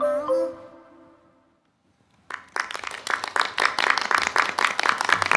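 The last notes of a song fade away. After a short silence, a small group of people starts clapping about two seconds in, with brisk, uneven applause.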